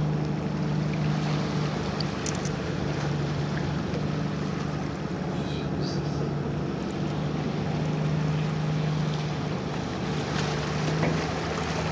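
An engine running steadily at one low, unchanging pitch, with wind and water noise.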